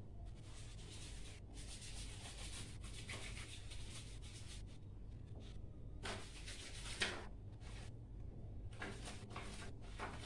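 Intermittent rustling and rubbing as hands handle objects at a candle-lit bucket, in short rough stretches with a stronger one about two-thirds of the way in, over a faint steady low hum.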